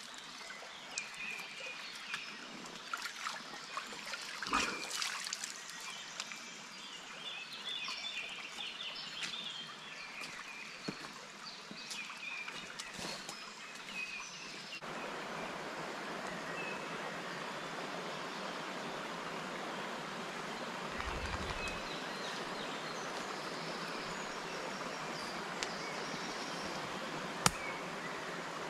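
A shallow stream trickling over stones, with birds chirping and a few splashes of water. About halfway through it changes abruptly to a steadier, louder rush of running water, with one sharp click near the end.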